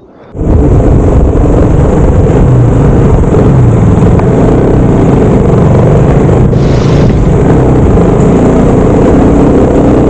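Motorcycle engine running steadily under way, with heavy wind rumble on the microphone. The sound comes in abruptly just after the start.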